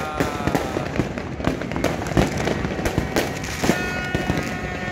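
Fireworks going off in a dense, irregular barrage: many sharp bangs, several a second, over a continuous rumble and crackle of further explosions.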